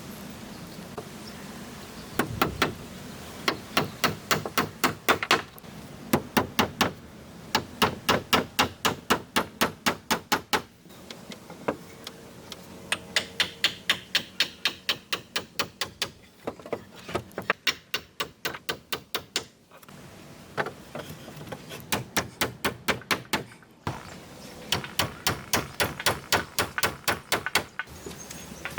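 Hammer blows on wood in quick runs of about five or six strikes a second, with short pauses between the runs.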